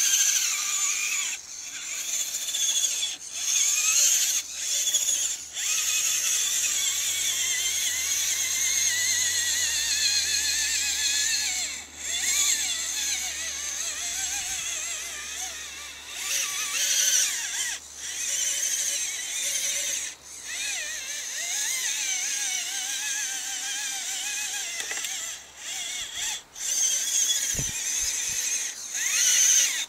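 Trailstomper RC truck's electric motor and drivetrain whining high as it crawls through a muddy creek. The pitch rises and falls with the throttle, and the whine drops out briefly several times as the throttle is let off.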